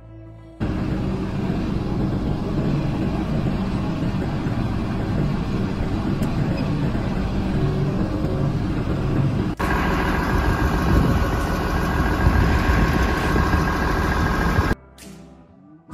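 Farm tractor engine running steadily while the tractor drives along a dirt road, heard from the seat behind the hood, with a rumbling running noise. The sound breaks off for an instant at an edit about two-thirds through, then carries on; short stretches of background music bracket it at the start and end.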